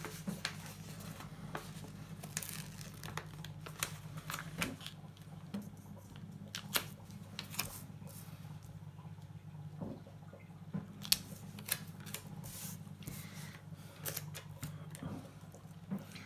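Paper sticker sheets being handled and stickers peeled and pressed onto a planner page: scattered small clicks, taps and rustles. A steady low hum runs underneath.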